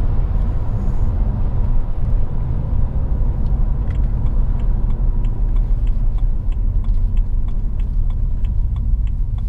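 BMW 335i's N54 twin-turbo straight-six and road noise heard from inside the cabin as a steady low rumble while the car slows, with the engine misfiring on cylinder 6 after the warning light came on. A faint regular ticking, about two to three ticks a second, begins a few seconds in.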